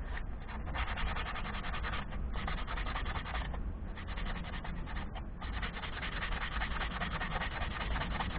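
An oak walking-stick handle being hand-sanded with a strip of abrasive paper: fast back-and-forth rubbing strokes, with short pauses about two, three and a half and five seconds in.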